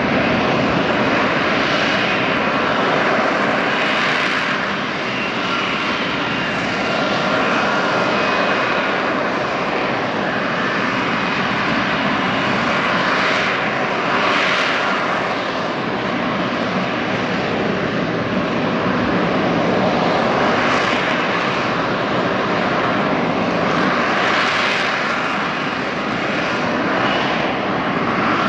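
F-35B Lightning II hovering on its F135 jet engine and shaft-driven lift fan: a steady, loud jet roar with a high whine in it, swelling and easing several times as the aircraft turns in the hover.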